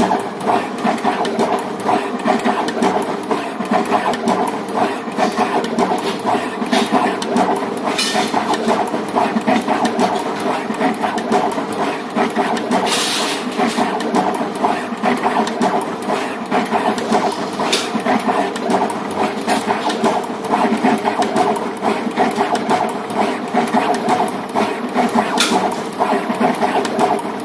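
SMT pick-and-place machine running, placing LEDs onto LED circuit boards: a steady mechanical whir under fast, uneven clicking from the moving placement head. A short hiss comes about halfway, with a few fainter ones at other points.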